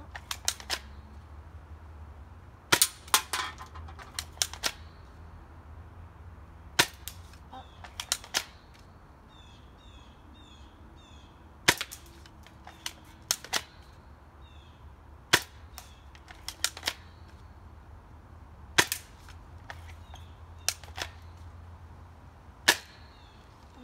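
Cheap spring-powered airsoft sniper rifle firing, one sharp crack every few seconds with softer clicks after each shot. Birds chirp faintly between shots.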